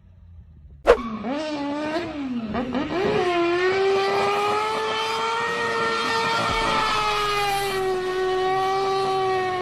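Small car's engine revving hard. It starts abruptly about a second in, climbs unevenly, then holds steady at high revs while the Smart ForTwo spins on asphalt.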